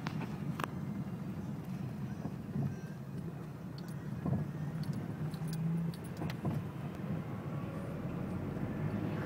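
Car engine and road noise heard from inside the cabin while driving slowly, a steady low rumble with a few scattered small clicks and rattles.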